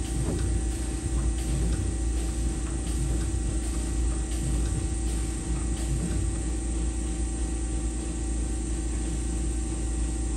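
Haas SL-20 CNC lathe standing idle under power: a steady machine hum with a constant mid-pitched tone, and faint light ticks now and then.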